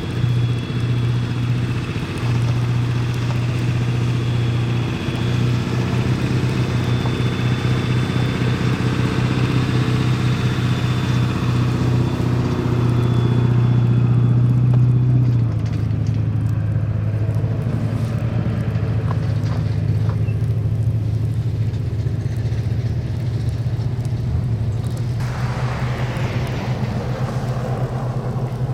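A vehicle engine running steadily with a low hum. The hum eases slightly about halfway through, and a hiss rises near the end.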